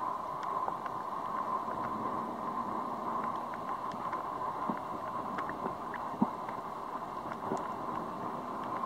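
Underwater ambience over a shallow coral reef: a steady hiss with small clicks and crackles scattered through it, and one sharper click about six seconds in.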